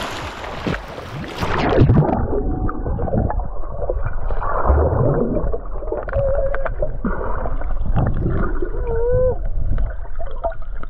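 Splashy rush of water as an action camera plunges under the sea surface, then muffled underwater sloshing and bubbling heard through the camera's housing. A few short squeaky tones that bend in pitch come through the water near the middle.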